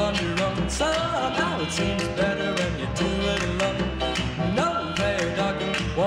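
Background music: a country-style song with guitar over a steady beat, its lead melody sliding between notes.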